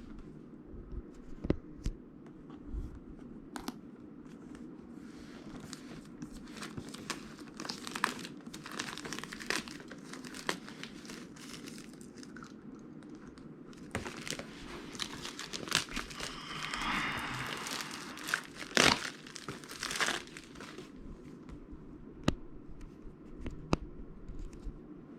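Product packaging being opened by hand: plastic wrap crinkling and tearing and cardboard rustling, with scattered clicks and knocks. A dense stretch of crinkling comes about two-thirds of the way through, followed by two sharp knocks.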